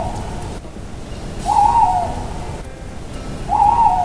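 Owl hooting: two hoots about two seconds apart, each about half a second long and wavering in pitch, over a steady low rumble.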